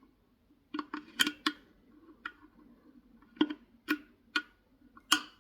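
Irregular light clicks and taps of small hard parts being handled, about nine over five seconds, several falling in quick pairs.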